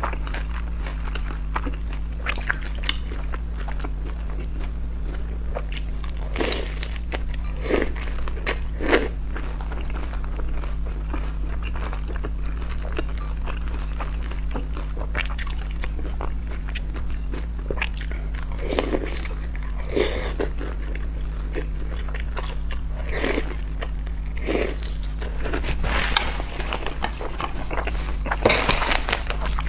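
Close-miked eating sounds of crisp pan-fried dumplings: scattered crunchy bites and chewing, over a steady low hum.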